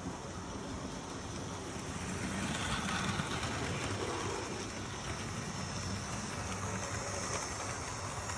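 Model railway trains running on the track: a steady whir and rattle of wheels and motors that grows louder as the coaches pass close by, about two to four seconds in.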